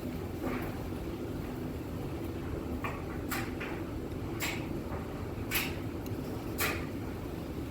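Someone eating a juicy rambutan, with about five short, wet, sharp mouth sounds spaced roughly a second apart over a steady low hum.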